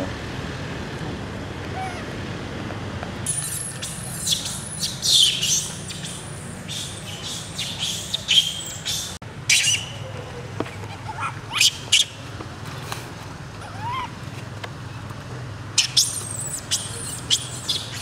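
Baby long-tailed macaque crying in distress: repeated short, very high-pitched squealing screams, several falling in pitch, coming in bouts from a few seconds in, over a steady low hum.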